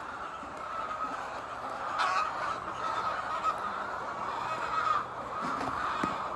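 A flock of laying hens clucking and calling together, a steady dense din. A few louder calls stand out about two seconds in and again near five seconds.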